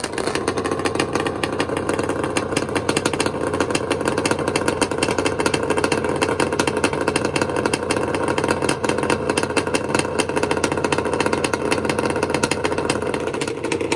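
Kawasaki H2 750 three-cylinder two-stroke drag bike engine running steadily, held at one engine speed, a rapid and even stream of exhaust pulses from its expansion-chamber exhausts.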